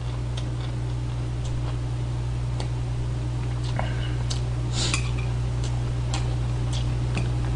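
Eating sounds: metal chopsticks clicking against a ceramic plate while picking up a pan-fried dumpling, with mouth-full chewing, over a steady low electrical hum. A brief louder scrape or slurp comes about five seconds in.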